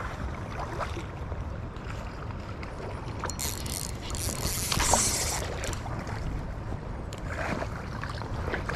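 Spinning reel cranked to bring in a hooked steelhead, over a steady rumble of wind on the camera microphone, with small handling clicks. A brighter hiss rises for about two seconds in the middle.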